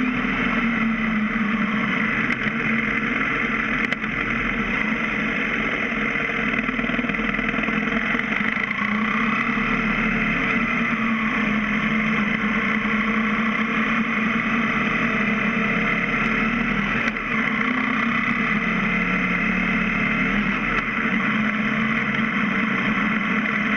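BMW F650 GS motorcycle riding at a steady town-traffic pace, heard from a camera mounted by the front wheel: a continuous engine drone whose pitch drifts gently up and down as speed changes, mixed with road and wind noise.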